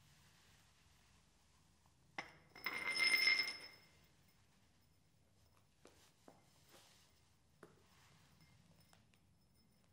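A small glass dropped onto a concrete floor: a sharp knock about two seconds in, then about a second of clinking and ringing as it settles. A few faint taps follow later.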